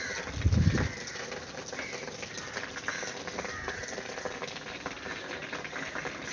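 River water lapping and splashing, a steady crackly patter, with one loud low thump about half a second in.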